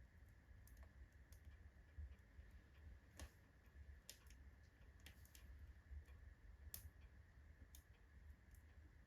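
Oak logs burning in a fireplace, faintly crackling with irregular sharp pops, a louder pop about three seconds in and another near seven seconds.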